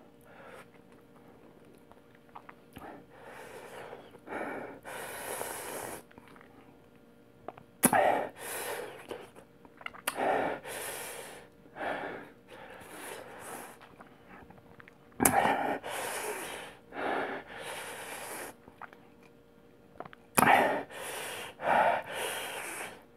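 A man breathing hard in repeated noisy, hissing gasps and exhalations, some starting abruptly, through an open mouth and clenched teeth: his reaction to the burning heat of the extremely hot chili chip he has just eaten.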